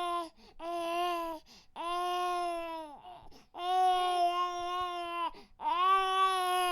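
Baby crying in a string of held wails, about five in a row with short breaths between, each steady in pitch and dropping at its end.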